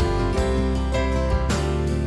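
Background music: strummed acoustic guitar with notes changing in a steady rhythm.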